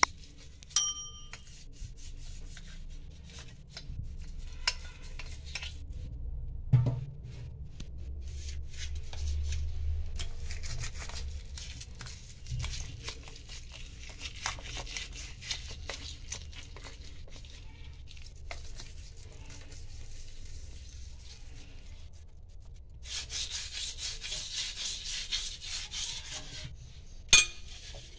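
Scrubbing a cleaning paste onto stainless steel sink taps: stretches of rubbing and scraping, with metallic clinks, a short ringing clink near the start, and two sharp knocks, one about a quarter of the way in and one near the end.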